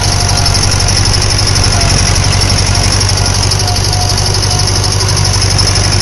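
1964 David Brown tractor engine running steadily at a constant speed, pulling a harrow across the ground.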